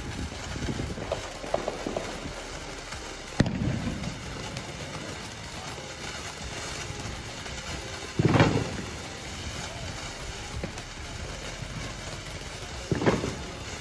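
Happy Trolls fountain firework burning: a steady hiss of spraying sparks with scattered crackling, a sharp crack about three seconds in, and two louder bursts later on, one around the middle and one near the end.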